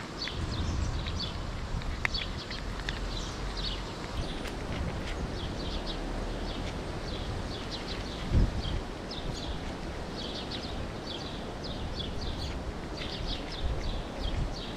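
Cat chewing dry kibble near the microphone, with birds chirping rapidly throughout. A single thump about eight seconds in.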